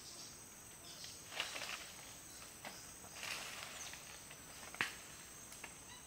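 Rainforest ambience: insects keep up a steady, high-pitched drone, broken by a handful of short rustles and snaps in the foliage.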